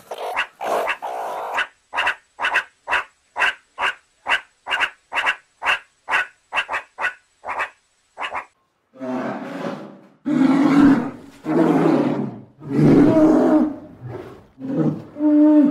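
Meerkat calls: a regular run of short, sharp calls, about two a second. About nine seconds in they give way to a polar bear's deep, rough growling calls, about six of them, each lasting about a second.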